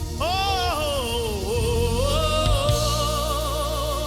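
Gospel worship song: a solo voice sings a wordless run that swoops up and down, then holds a long note with vibrato, over sustained low accompaniment.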